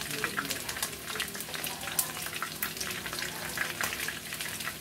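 Chicken pieces frying in hot oil in a wok: a steady sizzle dense with small crackles and pops.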